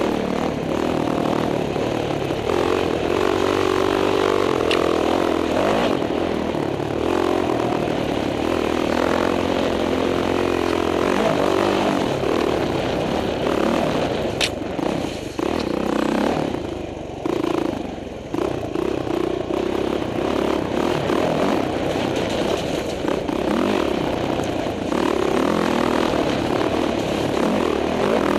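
Dirt bike engine heard from on board while riding a rough trail, its note rising and falling with the throttle and easing off briefly about two-thirds of the way through.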